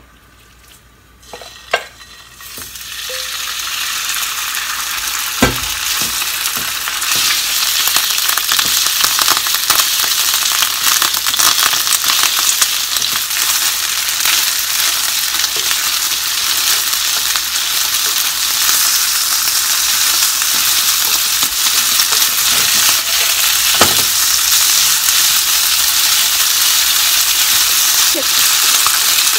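Thinly sliced beef frying in hot vegetable oil in a non-stick pan, stirred with chopsticks: the sizzle starts about two seconds in, builds quickly and then holds steady. A couple of sharp knocks stand out over it.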